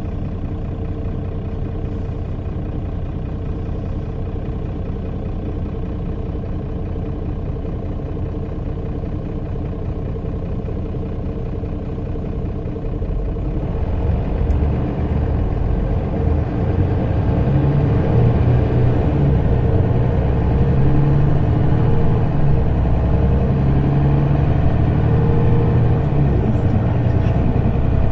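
City bus heard from inside the cabin, its engine idling steadily with a low hum, then pulling away about halfway through: the engine grows louder and its low drone shifts as the bus gathers speed.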